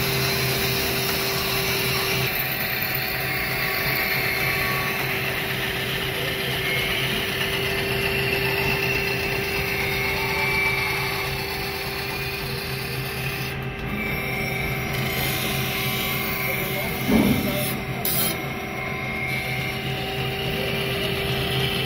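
Motor-driven grinding machine running with a steady hum while a sickle blade is ground against it, a continuous grinding hiss over the motor. A short knock about three-quarters of the way through.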